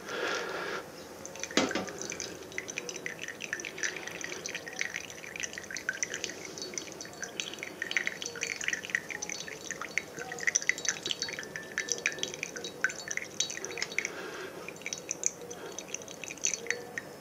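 Brewed coffee dripping and trickling from a flannel drip filter into a ceramic mug, a rapid, irregular patter of small drips. A single sharp knock comes about a second and a half in.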